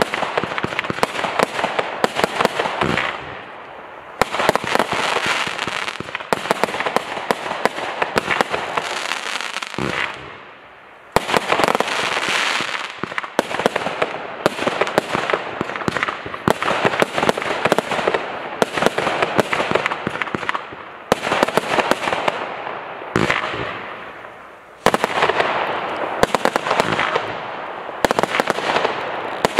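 Black Panther Fireworks' Legion firework firing shot after shot: rapid bangs and pops from the bursts, in waves with short lulls about four and ten seconds in, then loud new salvos starting sharply about eleven and twenty-five seconds in.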